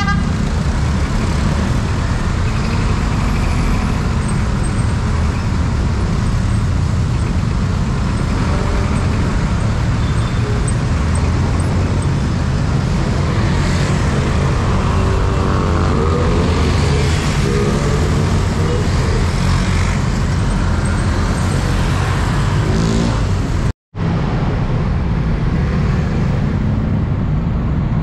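Dense road traffic heard from among the vehicles: a steady low rumble of engines and tyres, with the engines of nearby vehicles rising and falling in pitch midway. The sound cuts out for a split second near the end.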